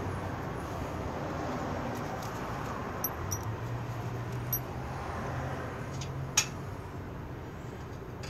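A few light metallic clicks and clinks as lock washers are fitted onto the strainer flange's bolts, the sharpest near the end, over a steady low hum.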